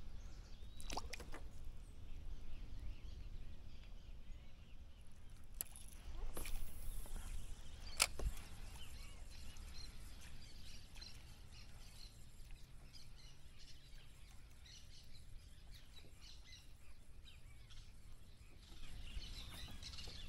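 Quiet open-air lake ambience: a steady low rumble with faint birds chirping now and then. A few sharp clicks or knocks break through, the loudest about eight seconds in.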